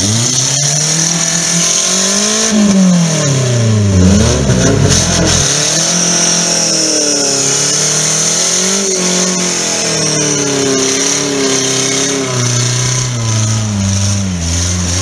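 Suzuki Jimny's engine revving up and down repeatedly under load as the 4x4 claws its way up a muddy bank out of a stream.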